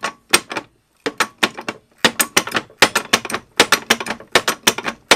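Craftsman 3-ton hydraulic floor jack being pumped by its handle: a rapid run of sharp metallic clicks and clacks, several a second, getting busier about a second in. The jack is cycling properly after being refilled with oil and having its fill plug burped to let out trapped air.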